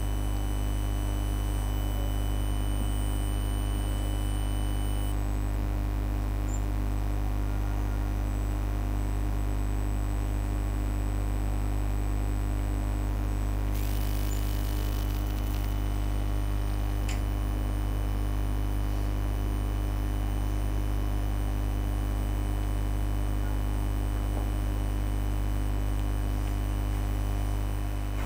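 Steady low electrical mains hum with a buzz of overtones, picked up by the recording. A short hiss comes about fourteen seconds in.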